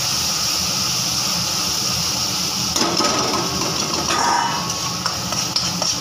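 Ground ginger-garlic paste sizzling as it fries in hot oil in a kadai, a steady hiss. About three seconds in, a metal spatula starts stirring and scraping it against the pan, adding clicks and scrapes.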